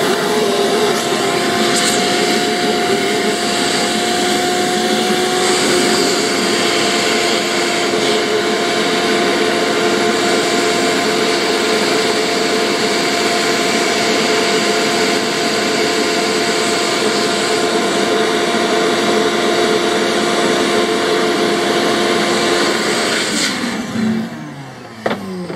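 Vacuum cleaner running steadily with a whine, its hose nozzle held against an electric trolling motor's housing to suck dust and debris out of it. It is switched off near the end and winds down, its pitch falling.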